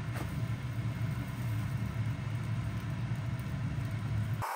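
A steady low motor-like hum, as of a fan or motor running, with a faint tap just after the start.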